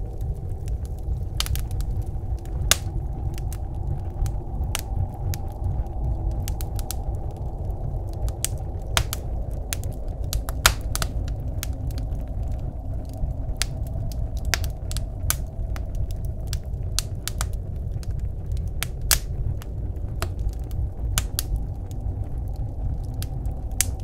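Wood fire crackling in a wood stove, with irregular sharp pops and snaps, over a steady low rumble of blizzard wind.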